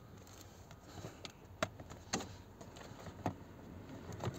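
Plastic steering-column trim of a VW Golf Mk6 being pulled and worked loose by hand: a handful of light, irregular clicks and knocks as the clipped panel shifts.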